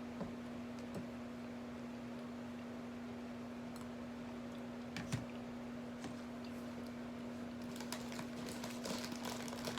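Light clicks and rustling from small objects being handled, over a steady hum. The clicks are scattered at first, with the sharpest about five seconds in, and come thicker near the end.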